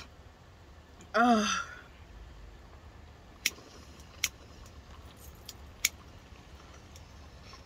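A short vocal sound about a second in, then three sharp clicks spread over the next few seconds, from a lighter being struck at a glass bong's bowl.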